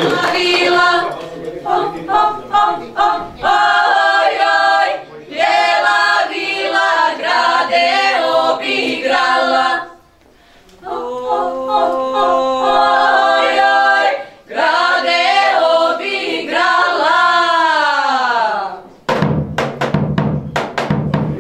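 Group of young women singing together in harmony, mostly unaccompanied, breaking off briefly about ten seconds in and ending a phrase with a long falling slide in pitch. Near the end a few strokes on a large double-headed drum come in.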